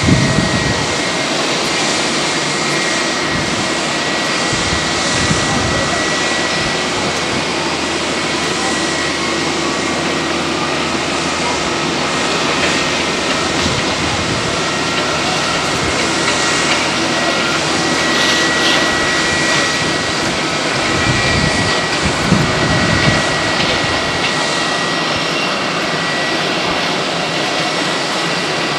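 Airbus A319 jet engines running steadily as the airliner taxis, a continuous jet noise with a steady high whine over it.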